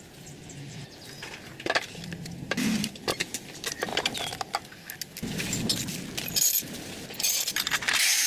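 Irregular clicks, knocks and clinks of small hard parts being handled, with a louder, denser clatter near the end.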